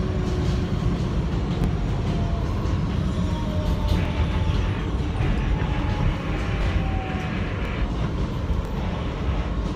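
Interior sound of a 2008 Kawasaki R160B subway car with Siemens propulsion running along elevated track: a steady low rumble of wheels on rail, with occasional faint clicks and a faint high squeal that drifts in pitch.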